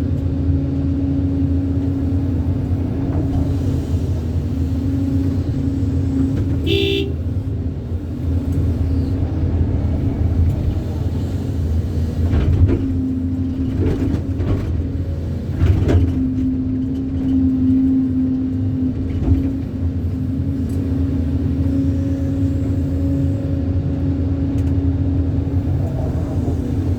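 Excavator's diesel engine running steadily under load, with a short horn toot about seven seconds in and a few knocks partway through.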